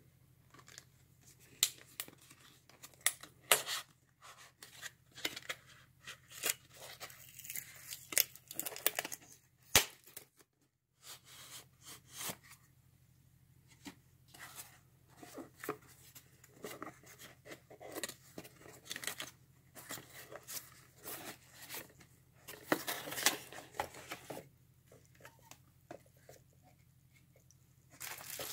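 Cardboard packaging being handled: a box slid out of its sleeve and its flaps opened, making a string of short scrapes, rustles and taps, with a brief silent break about ten seconds in. Plastic wrapping crinkles near the end.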